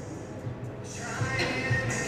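Background music with a low pulsing beat, coming up about a second in.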